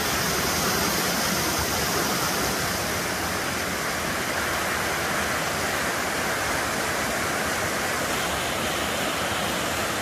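Small waterfall pouring over rock ledges into a pool: a steady rush of falling water.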